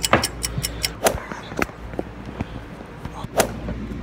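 Handling noise from a phone being fitted onto a tripod: sharp clicks and knocks, several in quick succession at the start, a few single ones after, and a louder knock near the end.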